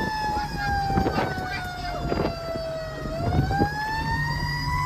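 Federal Q mechanical siren on a fire truck, heard from inside the cab: its wail slowly winds down in pitch for about three seconds, then spins back up. Underneath are the diesel engine's rumble and knocks and rattles in the cab.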